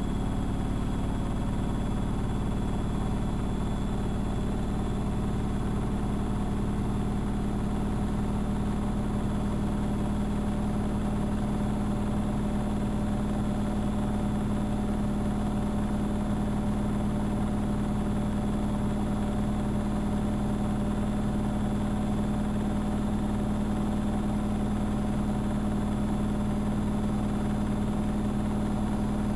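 AEG Electrolux Lavamat L6461 front-loading washing machine running with a steady, unchanging motor hum.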